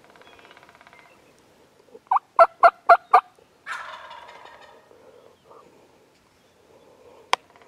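A wild turkey gobbler gobbling once, a rattling call about halfway through, just after a run of five loud, evenly spaced calling notes. A single sharp click comes near the end.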